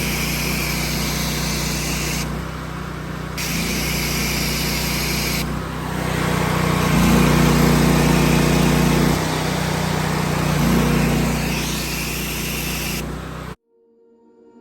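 Gas-engine pressure washer running with the high-pressure spray hissing. The spray stops and starts several times and the engine note shifts with the load. The sound cuts off abruptly near the end.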